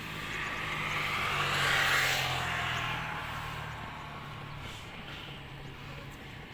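A motor vehicle passing by, its engine and road noise building to a peak about two seconds in and then fading away.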